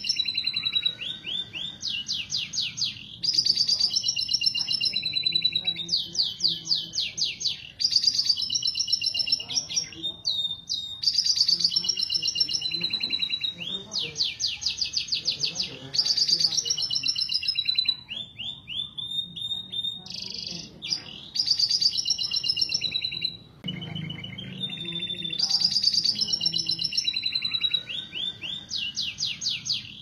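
Domestic canaries singing breeding-season mating song: fast rolling trills and rapid repeated notes alternating with held whistled notes, phrase after phrase with brief pauses between.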